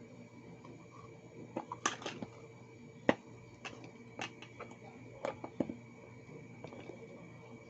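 Hard small objects being handled on a work surface: scattered sharp clicks and light taps, about a dozen, the loudest about three seconds in.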